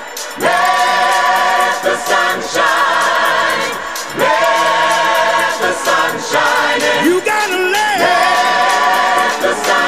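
Background music: voices singing in a choir-like style, holding long notes that change about every two seconds.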